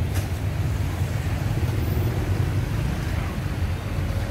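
Steady low rumble of outdoor street background noise, with no distinct events.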